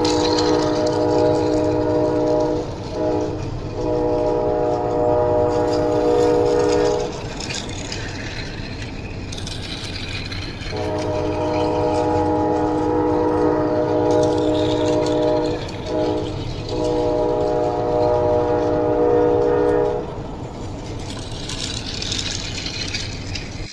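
Train horn sounding in two long steady blasts, each broken briefly twice, with rumbling train noise in the gaps between them.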